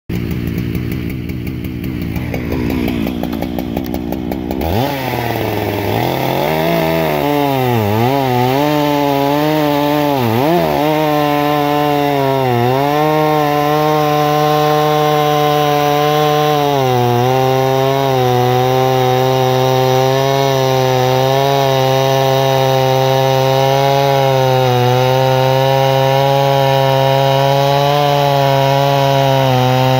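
Husqvarna two-stroke chainsaw ripping a hard maple round lengthwise along the grain, the noodling cut that throws long shavings. The saw runs at low revs, then revs up sharply about five seconds in. Its pitch dips several times as it bogs in the cut, then it holds a steady high-revving pull under load.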